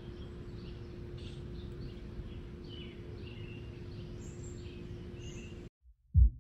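Outdoor ambience: small birds chirping now and then over a steady low hum with one constant tone. It cuts off suddenly near the end, and the first heavy beat of music comes in.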